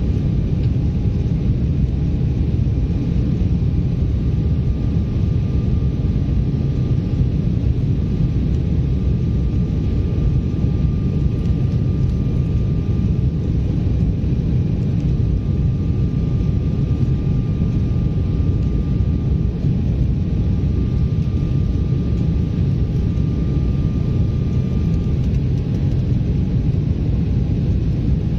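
Cabin noise inside an Embraer E190 airliner climbing out after takeoff: the steady low rumble of its GE CF34 turbofan engines and the airflow, with a faint high whine that drops out near the end.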